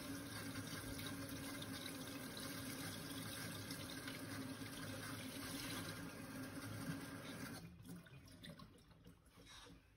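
Cold water running steadily from a kitchen tap over a glass bottle and into the sink, cooling the bottle. The tap is shut off after about eight seconds.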